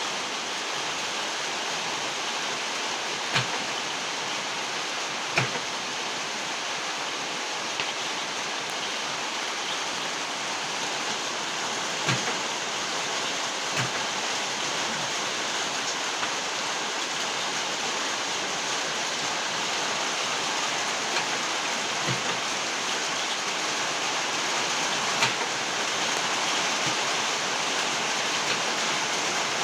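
Heavy rain pouring steadily, with a few sharp taps scattered through it, about half a dozen over the stretch.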